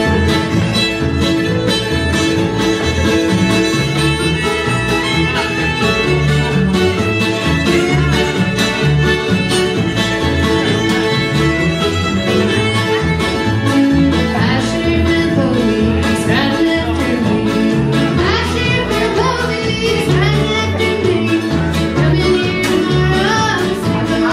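Acoustic string band playing a bluegrass-style tune live: fiddle lead over mandolin, guitar and upright bass, with the bass keeping a steady beat.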